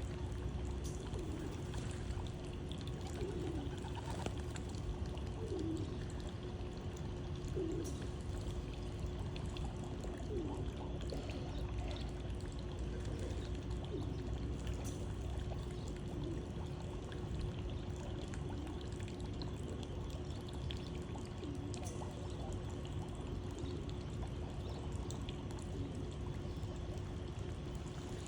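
Pigeons cooing, short low calls repeating every second or two, over a steady rushing noise like running water and a faint steady hum.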